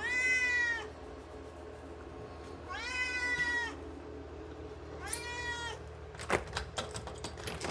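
Domestic cat meowing three times, each meow under a second long, asking to be let outside. A few sharp clicks and knocks follow near the end.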